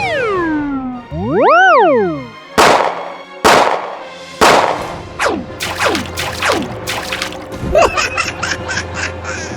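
Cartoon sound effects over background music: two loud whistle-like tones that glide up and back down in pitch, then a run of sharp hits and swishes that drop quickly in pitch, and a quick rattling flutter near the end.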